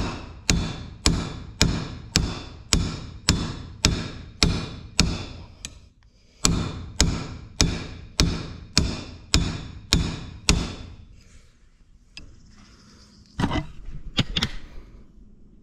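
Hammer striking a steel punch held against a hydraulic cylinder's end collar, sharp metal-on-metal blows about twice a second, in two runs with a short pause between, driving the collar inward so the internal snap ring groove can be reached. A few quieter knocks and handling noises near the end.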